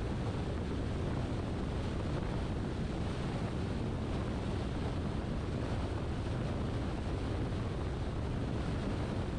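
Steady road and wind noise of a car driving at a constant speed, an even rush with no changes.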